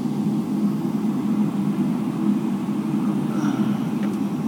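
Boeing 777-300ER's GE90 jet engines and airframe heard from inside the passenger cabin as a steady low rumble while the airliner is on the ground.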